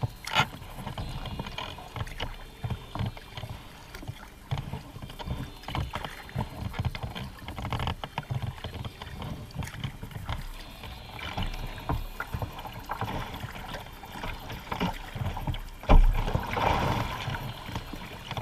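Water slapping and splashing against a sea kayak's hull as it rides through choppy waves, in an irregular run of small knocks and splashes over a low rumble. A heavy thump and splash comes about 16 seconds in.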